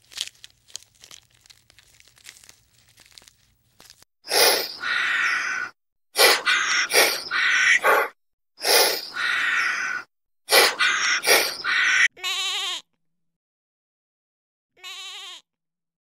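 Faint clicking and rustling, then from about four seconds in a run of loud sheep bleats in several bursts. Two shorter, wavering bleats come near the end, each cutting off abruptly.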